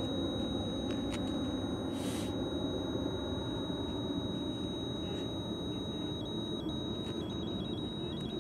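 Electronic ghost-hunting sensor device sounding its alert as one steady high-pitched tone, which flickers briefly off pitch several times from about six seconds in.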